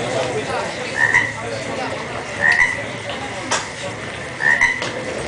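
A short, slightly rising chirping call, repeated about every one and a half to two seconds.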